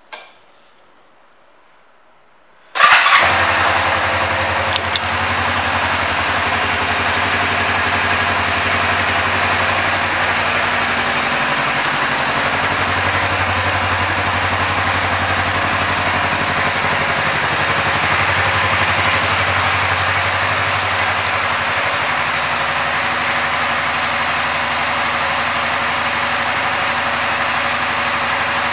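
2009 Kawasaki Vulcan 500 LTD's parallel-twin engine being started about three seconds in, catching at once and settling into a steady idle.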